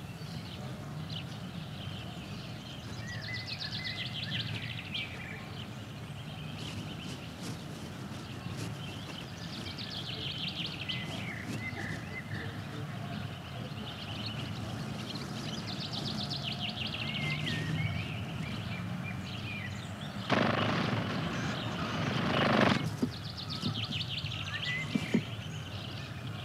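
A songbird singing short, repeated phrases that trill downward, one about every six seconds, over a steady low rumble of outdoor background noise. About twenty seconds in, a loud rush of noise lasts about two seconds.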